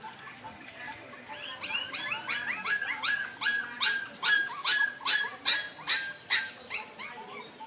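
Puppy whining in a rapid run of high-pitched cries, about three a second, starting a second or so in and growing louder before stopping near the end.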